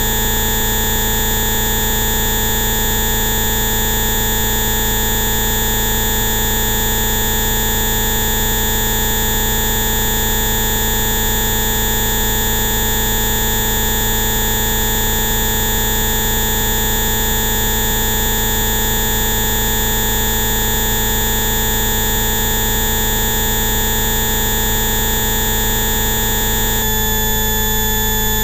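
Synthesized Rife-frequency tone complex for bioresonance therapy: many steady electronic tones sounding together at once, held without change. About 27 seconds in, the mix of tones switches abruptly to a different set.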